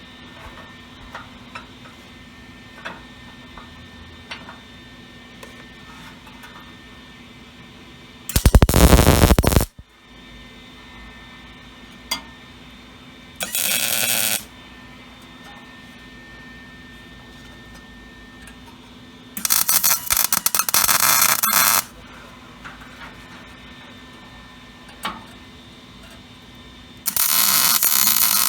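Four short bursts of arc welding crackle, each one to two seconds long, as weld beads are laid on steel brackets, with a steady low hum in between.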